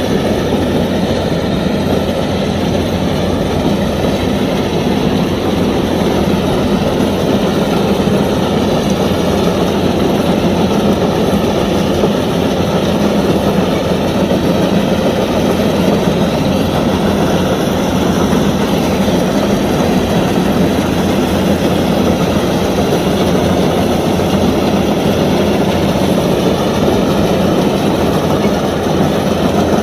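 Kubota DC-105X combine harvester running steadily while harvesting rice, its diesel engine and machinery giving an unbroken mechanical noise.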